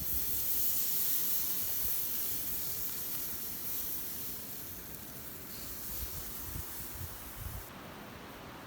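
A steady hiss that starts suddenly, slowly fades, and cuts off shortly before the end, with a few low thumps under it.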